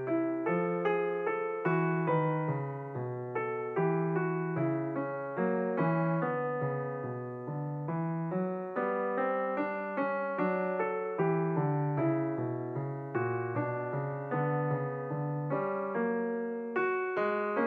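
Background music: a slow, gentle piano melody, one note about every half second.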